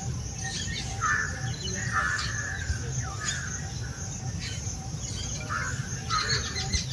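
Birds calling, with short, harsh caw-like calls coming roughly once a second and some higher chirps, over a steady low background rumble.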